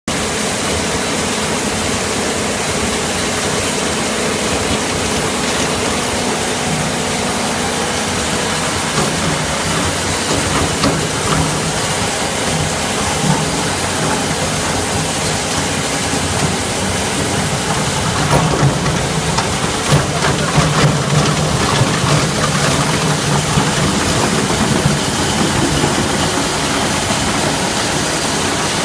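Pipe recycling machinery running: belt conveyors carrying shredded steel-wire-reinforced pipe, with the shredder and crusher line giving a loud, steady mechanical noise. From about eighteen seconds in it grows louder, with irregular knocks and a deeper rumble.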